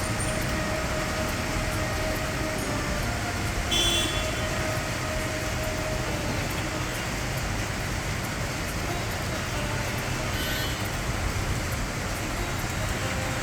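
Steady road noise of a moving car: an even rumble and hiss, with a brief high-pitched sound about four seconds in.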